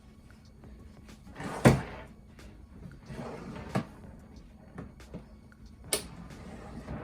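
Drawer on metal runners sliding and knocking shut twice, with a sharper click near the end.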